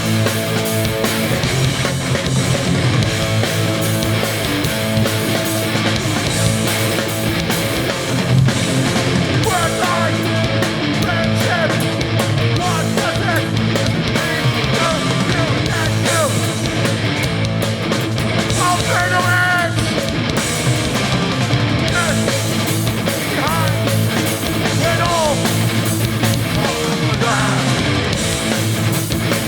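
Hardcore punk band playing a song live, with distorted electric guitars.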